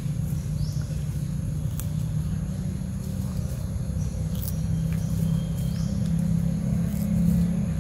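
Steady low mechanical rumble with a humming tone, with a few faint, short, high chirps over it.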